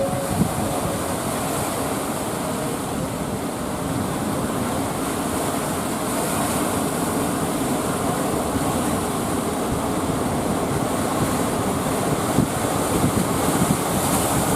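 Strong wind blowing steadily over the microphone, with the noise of surf.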